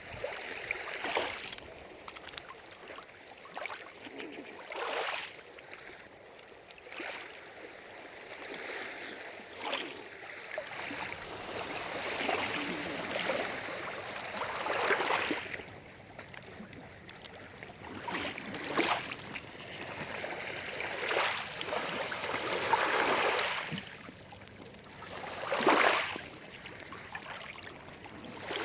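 Small waves lapping and splashing at the lake's edge, a steady wash that swells into a short splash every few seconds.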